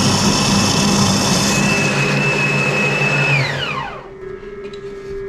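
Blender motor running at full speed, blitzing beef mince and bacon into a paste with a steady high whine. About three and a half seconds in it is switched off and the whine falls away as the motor spins down.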